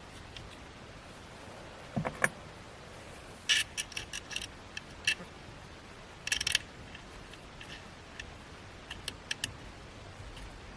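Small metal bolts and a hand tool clicking and rattling in short bursts as bolts are put into and tightened on a steering wheel quick release hub.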